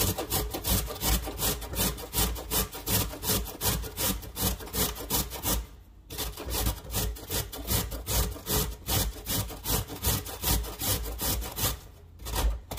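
A carrot being grated on a metal box grater standing on a wooden cutting board: quick, rhythmic rasping strokes, about three a second, with a short pause about halfway through and again near the end.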